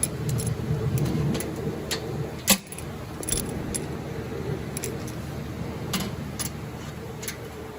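Metal parts and tools being handled: scattered light metallic clinks and ticks, with one sharp knock about two and a half seconds in, over a steady low hum.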